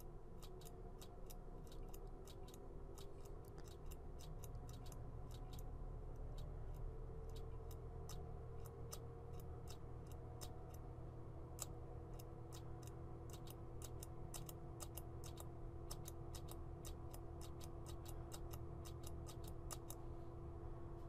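Channel button of a Marshall amplifier footswitch pressed over and over: a long run of light, irregular clicks as the amp switches channels, several a second at times, over the amplifier's faint steady hum. The switch being tested is a bouncy one, so the channel switching is flaky.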